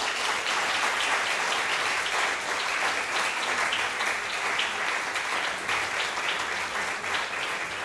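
Audience applauding steadily: the dense patter of many hands clapping at once, a lecture hall applauding the end of a talk.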